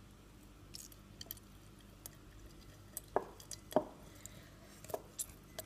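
Lemon half being squeezed by hand over a drinking glass, quiet, with scattered small clicks and a few short sharper taps a little past the middle.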